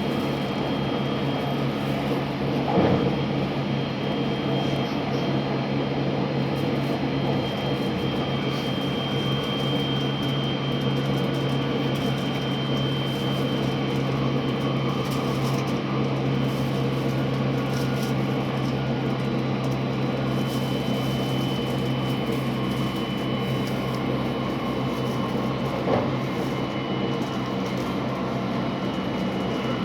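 Steady cabin noise inside a JR West 683 series electric train car, running with a constant low hum and a faint high whine. Two small knocks come through, about three seconds in and near the end.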